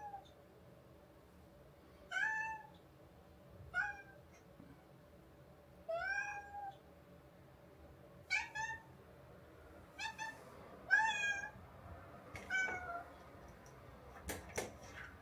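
A house cat meowing over and over, about eight short meows a second or two apart, as it waits at the front door wanting to be let out. Near the end come two or three sharp clicks.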